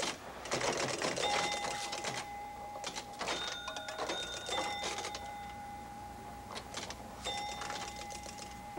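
Arcade games in play: a pinball machine's rapid mechanical clicking and rattling, with steady electronic tones that start and stop, one held for several seconds.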